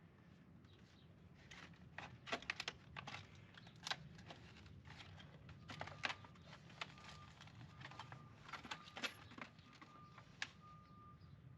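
Faint scattered clicks and light metallic clinks from hand work on a storm door closer and its mounting hardware. From about halfway through, a faint high tone comes and goes in the background.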